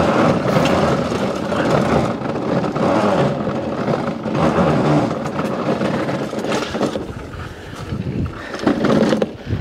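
Lawnmowers being wheeled over paving slabs and grass, the wheels and decks rattling and rumbling. The noise eases about seven seconds in.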